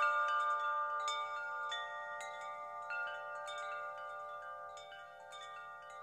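Chimes ringing: a cluster of clear, overlapping metal tones, with new strikes every half second to a second that ring on and grow gradually fainter.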